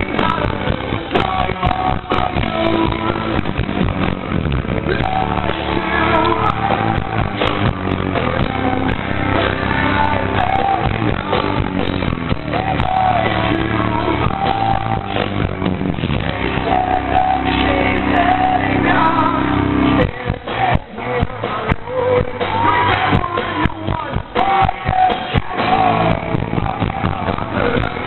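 Rock band playing live with distorted electric guitars, bass, drums and a male lead vocal. About twenty seconds in, the heavy low end drops away into a sparser, choppier passage.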